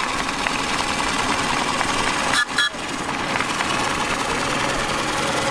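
Miniature steam traction engines running as they drive slowly past, a steady busy mechanical chuffing and clatter with steam hiss. The sound dips briefly about halfway through.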